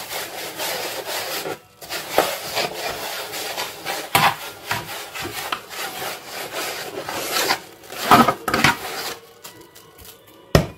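Semolina being rubbed and rolled by hand against a wooden bowl to form berkoukes pearls: a gritty, rasping scrape in irregular strokes. It grows quieter near the end, with a single sharp click just before the end.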